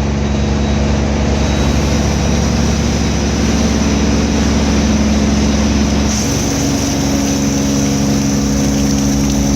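Cold-water pressure washer's engine running steadily, its note shifting and a hiss rising about six seconds in.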